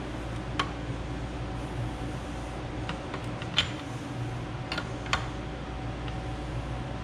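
About half a dozen sharp, irregularly spaced metal clicks and taps from hand-tightening a braided PTFE AN hose end's compression nut onto its fitting, over a steady low hum.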